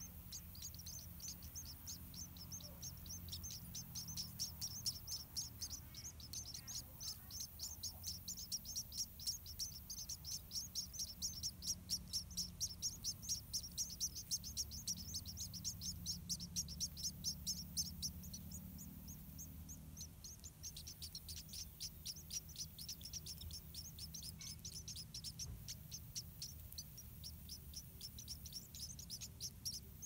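White-rumped munia nestlings begging for food at the nest: a long, rapid run of high-pitched chirps, loudest around the middle and thinning out in the last third.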